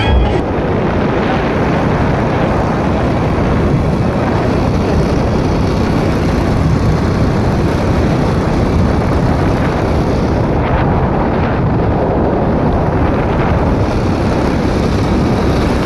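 Steady rush of wind buffeting the microphone, with the running noise of the open vehicle being ridden beneath it.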